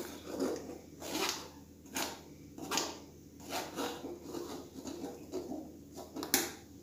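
A spoon scraping and pressing thick blended orange pulp against a stainless steel mesh strainer, in repeated strokes about once a second, to force the juice through.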